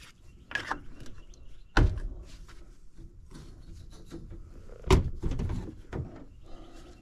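Work-handling noises: two sharp knocks, about two and five seconds in, the second the louder, with lighter clicks and rustling between them.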